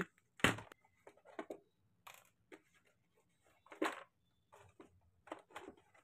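Light handling noises of a plastic toy RC car and its cardboard box as it is lifted out and turned over: scattered clicks, knocks and scrapes, the sharpest about half a second in.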